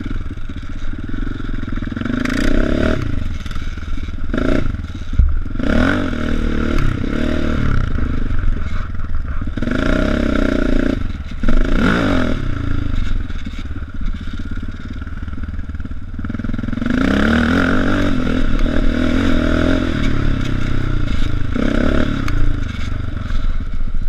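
Dirt bike engine revving up and dropping off again and again as it is ridden over a rough dirt track, with a quieter stretch around the middle.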